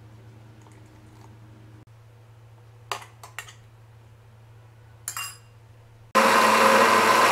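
A few metal clinks of a spoon against a steel mixer-grinder jar. Then, about six seconds in, the electric mixer grinder starts and runs loud and steady, grinding grated coconut with water to make coconut milk.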